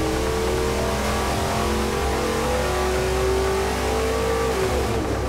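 540-cubic-inch big-block V8 running flat out on an engine dynamometer in a full-power test pull, its pitch rising steadily as the revs climb. Near the end the throttle comes off and the pitch falls.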